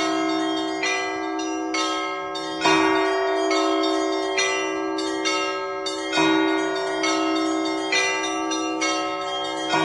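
Russian Orthodox church bells rung by hand from a belfry: smaller bells chime in a quick repeating pattern over a continuous ring, with a heavier bell stroke about every three and a half seconds.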